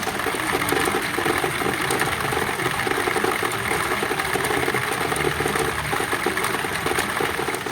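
Pachinko parlor din: a steady, dense mechanical rattle of pachinko machines and balls.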